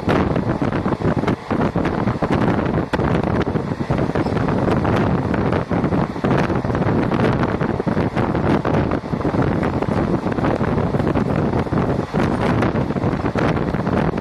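Wind buffeting the microphone at the open window of a moving train, over the train's running noise: a loud, steady rush with irregular gusts.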